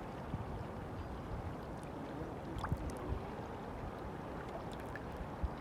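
River water flowing in a steady rush, with a few brief small splashes.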